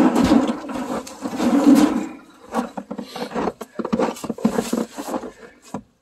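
A stainless steel barbecue grill being shoved and dragged into place: rubbing and scraping for about two seconds, then a run of irregular knocks and clunks.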